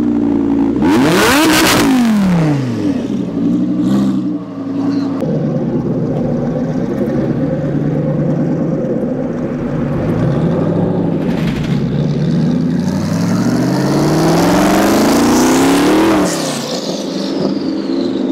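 Audi R8's V10 engine revving hard as the car pulls away, then running at a steady note before climbing in revs again to a peak about sixteen seconds in, after which the pitch falls sharply.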